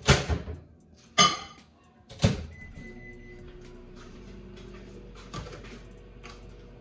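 Microwave oven being shut and started: three loud knocks of the door and dish in the first couple of seconds, a short beep, then the microwave running with a steady low hum.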